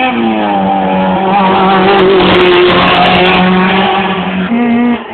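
Rally car engine running hard at high revs, its pitch dropping just after the start and then held steady, with a rush of noise and clicks in the middle and a short rise in pitch near the end before the level falls away.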